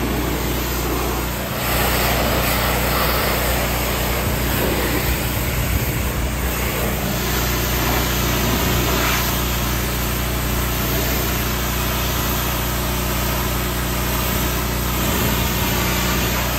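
Pressure washer running steadily, its motor humming under the hiss of the high-pressure water jet, which gets louder about two seconds in.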